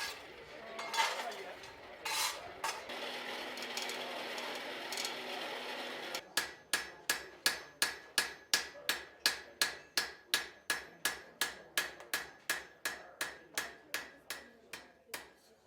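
Blacksmith's hammer striking hot metal on an anvil, each blow ringing. Over the first few seconds there are a couple of single blows over a steady rushing noise. From about six seconds in the blows fall in an even rhythm of about three a second.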